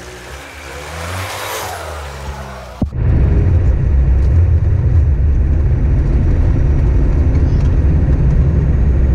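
A 4x4's engine revs as it churns through mud and standing water, with splashing. About three seconds in, this cuts abruptly to a loud, steady, low drone of the vehicle driving on a sealed road, heard from inside the cab.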